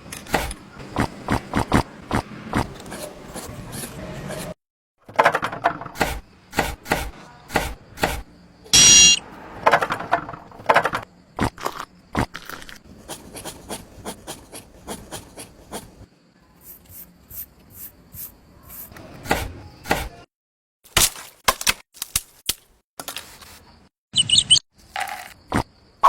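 Miniature construction work in short edited snippets: rapid small taps, clicks and scraping of tools and tiny building materials, with brief dead gaps between cuts. A short high-pitched squeal comes about nine seconds in and again near the end.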